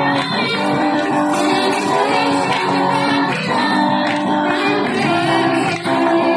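Praise and worship music: voices singing a song over guitar accompaniment.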